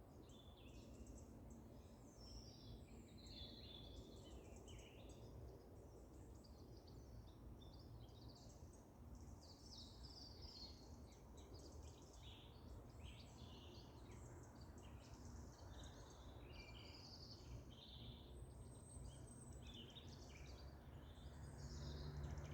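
Faint songbirds chirping and twittering: many short, high calls, several overlapping, over a low steady background rumble.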